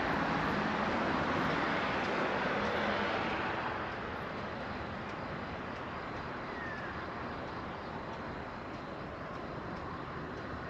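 Road traffic noise: a passing vehicle's hiss, louder at first and fading about three and a half seconds in, leaving a steady, quieter traffic hum.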